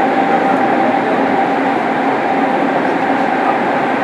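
Running noise of a JR Kyushu 103 series electric train (motor car MoHa 103-1510) heard from inside the car while under way in the subway, a steady rumble and rush with a thin steady whine above it.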